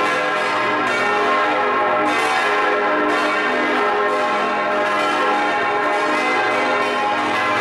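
Full peal of six swinging bronze church bells (tuned A-flat, C, E-flat, F, G, B-flat) heard close up in the belfry. The strikes overlap into a dense, continuous ringing at an even loudness.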